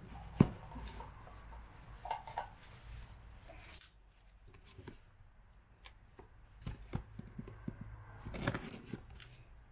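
A wooden box knocked down onto a workbench, with one sharp knock, then small clicks and handling sounds. Near the end comes a short scraping stretch as a knife cuts the packing tape wrapped around the box.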